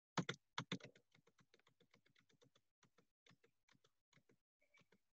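Faint rapid clicking of computer keys, several clicks a second, loudest in the first second and thinning out toward the end.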